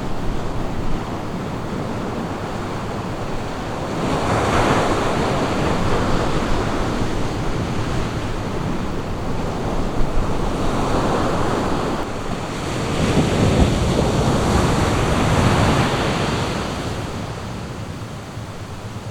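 Ocean waves breaking and washing up on a beach, with two surges of surf about four and twelve seconds in that ease off near the end.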